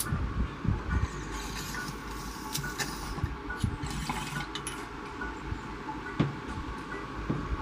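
Water bubbling in a small glass bong as a hit is drawn through it, a crackly bubbling that runs from about a second in for three or four seconds.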